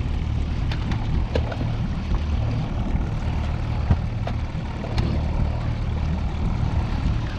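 Evinrude 60 outboard motor running steadily, a low hum, with a few sharp clicks over it.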